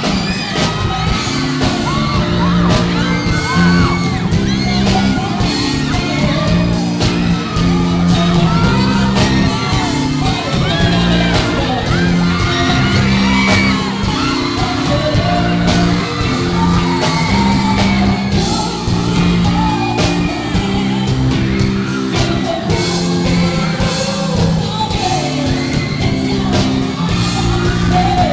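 Male vocalist singing a pop song live into a microphone over instrumental accompaniment with a steady beat, with yells and whoops from the audience.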